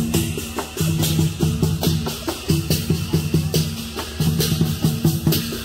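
Lion dance percussion band playing: a large barrel drum beaten in a quick, steady rhythm, with hand cymbals clashing along on the beat.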